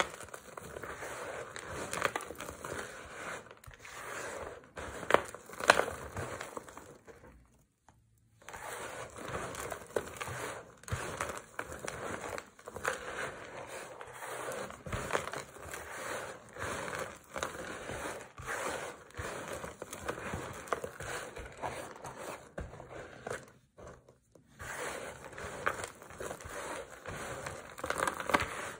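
Dry bar soap crumbled into flakes and powder being squeezed and crushed by hand: a continuous dense crunching and crackling. It stops briefly twice, about eight seconds in and again about two-thirds of the way through.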